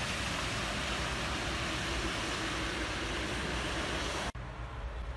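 Steady hiss of rain and tyres on a wet road, with a low rumble under it. It cuts off abruptly a little over four seconds in, leaving a quieter low rumble.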